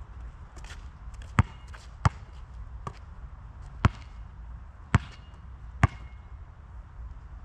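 Molten GB3800 basketball bounced on an asphalt court: five sharp bounces at uneven intervals as the ball is dribbled into position, with a few faint taps and scuffs between them.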